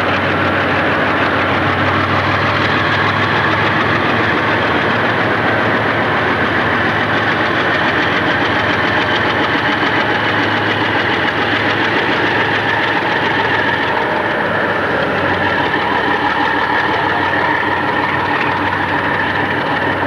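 Several Conrail diesel-electric locomotives coupled together, their engines running steadily with a low hum as the lash-up moves slowly along the track.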